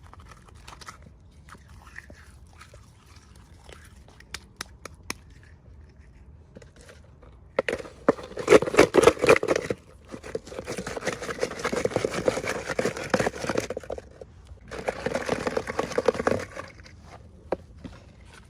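Scattered small clicks and taps, then packaging crinkling and rustling as it is handled and opened, in three stretches of a few seconds each, the first the loudest.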